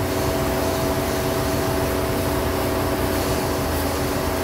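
Dodge Stratus engine idling steadily with its electric radiator cooling fan running, a constant hum with a low rumble. The idle sits high, around 1000 rpm, from a vacuum leak at the fuel injector O-ring seals, the cause of its P0507 high-idle code.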